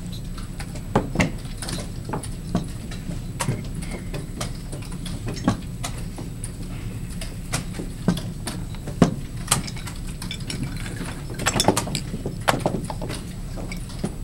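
Plastic chess pieces set down on vinyl boards and chess clock buttons pressed during blitz play: irregular sharp clicks and taps, with a quick run of taps about eleven to twelve seconds in, over a steady low background hum.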